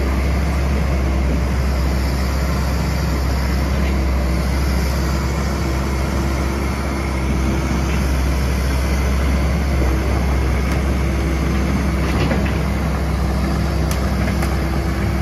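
Takeuchi TB257FR compact excavator's diesel engine running steadily with a deep, even hum, and a few faint clicks near the end.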